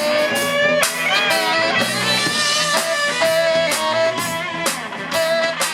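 Live rock band playing, with electric guitar leading over bass and a drum kit; some guitar notes are bent and wavering.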